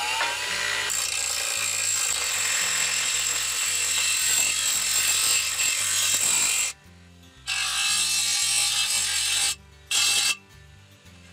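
Steel fence top rail being ground on the wheel of a Delta bench grinder, smoothing a cut end: a steady, loud, high grinding hiss after the motor's rising whine in the first second. The grinding stops and starts three times in the second half as the tube is lifted off the wheel.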